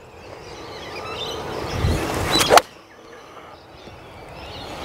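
A Callaway Rogue Pro iron strikes a golf ball with one sharp crack about two and a half seconds in. Before and after it there is a rushing outdoor noise that grows louder, with birds chirping.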